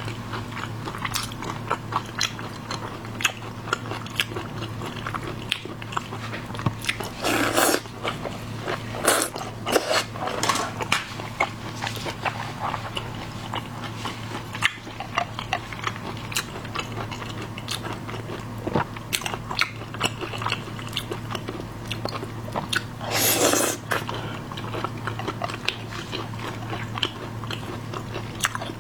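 Close-up eating of seafood: biting, crunching and wet chewing, with many sharp clicks and crackles and two louder, longer noisy sounds, about a third of the way in and again past three-quarters of the way through. A steady low hum sits under it.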